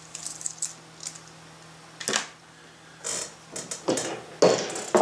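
Light clicks and rustles of hookup wire and a plastic multi-pin connector being handled and set down on a plywood work board, with a few louder rustling knocks near the end.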